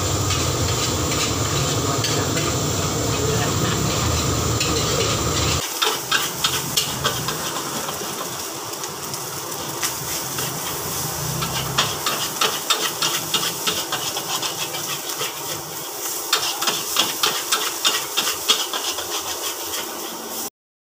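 Nasi goreng (fried rice) frying in a steel wok: a steady, loud rush of sizzling at first, then, after a cut, a metal spatula repeatedly clanking and scraping against the wok over a quieter frying hiss. The sound cuts off suddenly near the end.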